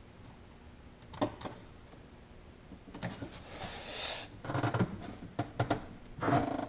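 Kawasaki JS550 jet ski exhaust pipe being worked by hand to pull it off the water box: a single click about a second in, scraping and rubbing from about three seconds, then a run of knocks and rattles near the end.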